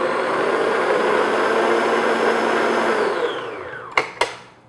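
Electric stand mixer beating pumpkin batter in a glass bowl, its motor running steadily and then winding down about three seconds in. Two sharp knocks follow near the end.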